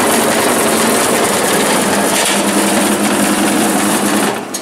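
Commercial bread slicer running, its rows of saw blades cutting through a crusty loaf as it is pushed in by hand: a loud, steady mechanical buzz with a low hum, which drops off sharply near the end.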